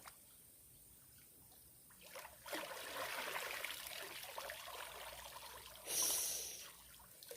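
Water splashing and trickling, starting about two seconds in, with a short louder hiss near the six-second mark.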